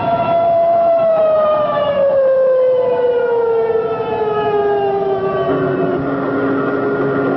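Air-raid alarm siren wailing on one steady pitch, then slowly winding down in pitch over several seconds. About five and a half seconds in, a steady lower drone joins it.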